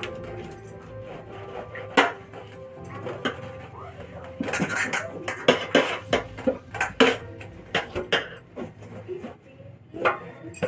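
Scattered clinks and knocks against a stainless steel kitchen sink, thickest a few seconds in, over steady background music.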